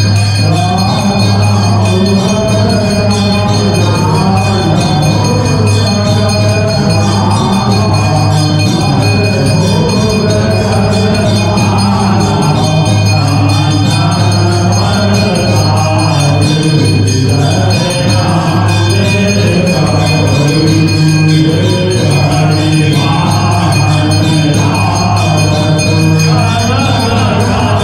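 A Hindu aarti hymn sung by a man into a microphone and played over a loudspeaker, with bells ringing throughout and a steady low drone underneath.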